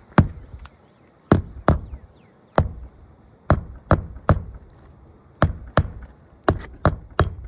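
Hammer driving roofing nails by hand into asphalt shingles: about a dozen sharp blows in irregular clusters, struck with the shingle lifted to fit the hammer under it.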